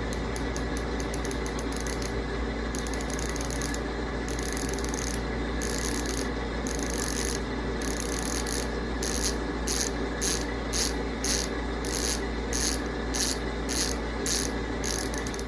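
Bicycle hub with a 6-pawl, 72-engagement ratchet freewheeling, its pawls buzzing in a crisp run of rapid clicks. The clicking comes in short repeated spurts, which grow quicker and more regular after about the halfway point, a little under two a second.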